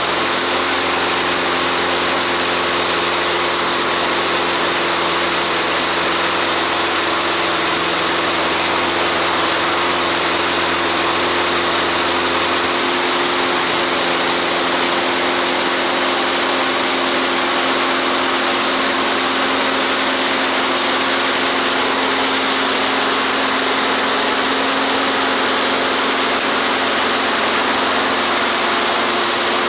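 Toro walk-behind lawn mower's small single-cylinder engine running steadily just after being rope-started, now running after its head gasket was replaced and the carbon cleaned off. The low hum drops away about twelve seconds in, leaving a steady, slightly higher running note.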